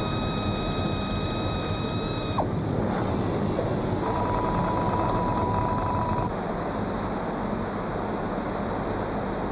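Automated car production-line machinery running with a steady mechanical noise. Two high whines sound over it: the first drops in pitch and stops about two and a half seconds in, and the second runs from about four to six seconds.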